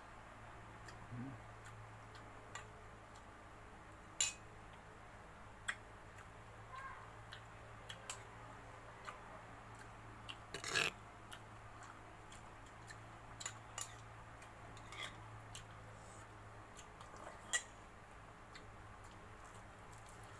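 Eating sounds of fried fish and rice taken by hand from a glass bowl: scattered sharp clicks of mouth smacks and chewing, with small clinks against the glass bowl, loudest in a short cluster about halfway through.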